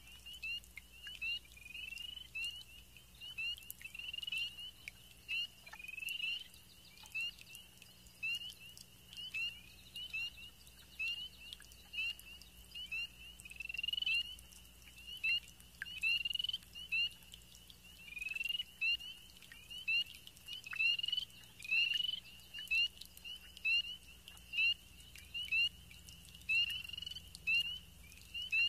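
Frogs calling in chorus: many short, high rising chirps, overlapping and repeated about twice a second.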